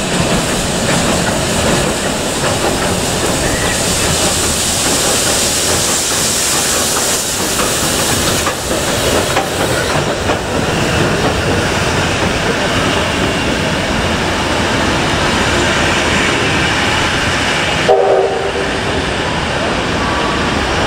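A steam-hauled heritage passenger train running, a loud steady rumble of wheels on rails with clickety-clack. Near the end comes a brief pitched tone.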